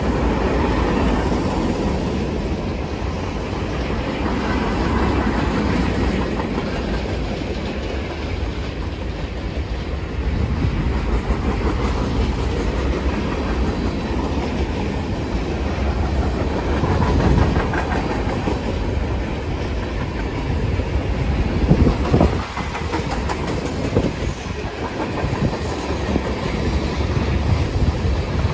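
Freight train cars, covered hoppers and tank cars, rolling steadily past: a continuous rumble with wheels clicking over the rail joints. A few louder knocks come about two-thirds of the way through.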